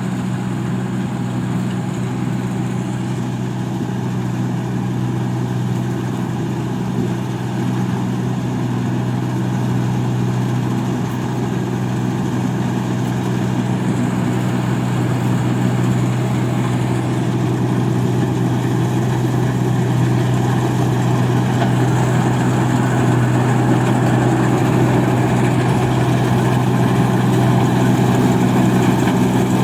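Engine of a rice-paddy machine running steadily with an even hum, growing slightly louder toward the end.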